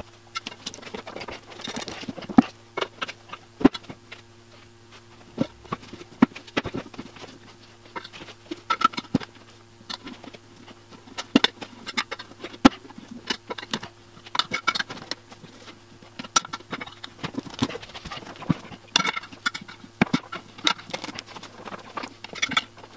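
Tire irons clicking, knocking and scraping against an aluminum motorcycle wheel rim and rubber as a new tire is levered onto it by hand. The clicks are irregular, over a steady low hum.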